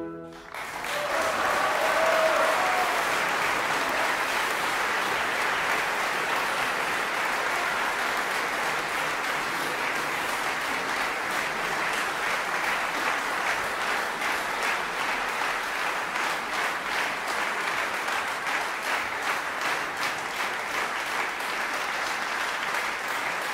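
Audience applauding, starting just under a second in as the orchestral music ends and holding steady.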